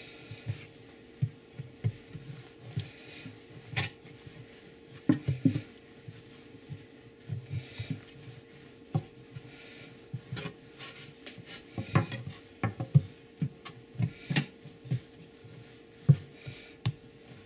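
Potato lefse dough being kneaded and rolled into a log by hand on a wooden cutting board: irregular soft thumps of dough and palms against the board, with a few sharper knocks.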